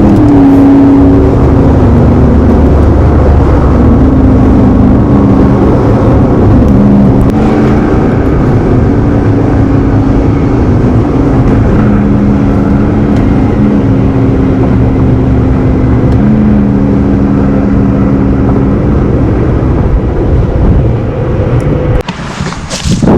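Car driving, heard from inside the cabin: steady engine and road rumble with a humming drone that shifts in pitch now and then. The rumble drops away about a second before the end.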